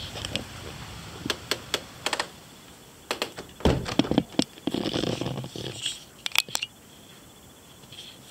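Handling noise from the recording device being moved: a string of sharp clicks and knocks with short bursts of rubbing in the middle, over a faint steady hiss.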